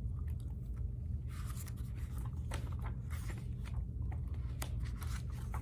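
A paperback picture book being opened and its pages handled: soft paper rustles and several light ticks, over a steady low hum.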